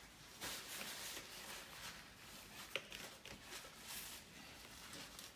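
Faint kitchen handling noise with a few light clicks and taps, the sharpest a little under three seconds in.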